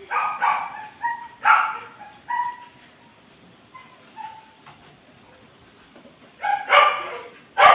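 A small dog yipping and barking in short bursts: several in the first two seconds or so, then louder ones near the end.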